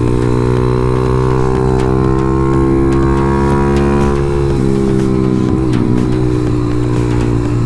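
Motorcycle engine running under steady throttle, its pitch rising slowly, then dropping briefly about four and a half seconds in and climbing again.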